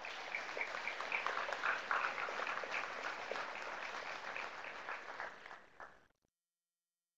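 Audience applauding, a steady patter of many hands clapping that fades a little and then cuts off abruptly near the end.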